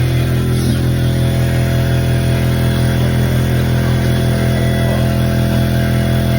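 An engine or motor running steadily at one constant speed, a loud even hum with no revving.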